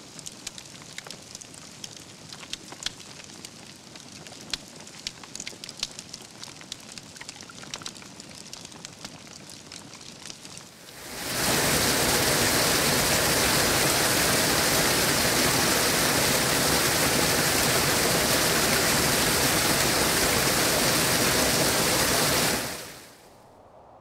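Wood fire crackling, with many sharp pops. About eleven seconds in, it switches to water falling and splashing, a much louder steady rush, which fades out near the end.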